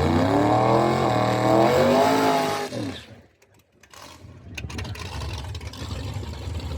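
Car engine accelerating hard, its pitch climbing and then holding for about two and a half seconds before falling away and cutting off. A fainter rough rumble follows near the end.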